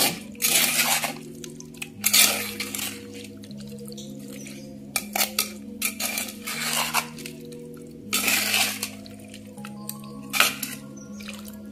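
Metal spoon scraping and clinking against an unglazed clay pot while stirring a wet curry, in irregular strokes, with background music underneath.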